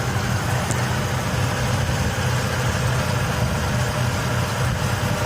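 Car engine idling steadily with a low, even hum. No lifter tick stands out; the owner says the clicking is not happening right now.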